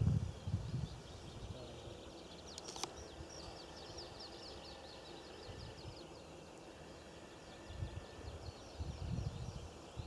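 Open-field ambience: a steady run of rapid, high-pitched chirps, with low rumbles of wind on the microphone near the start and again near the end, and a single sharp click just before the three-second mark.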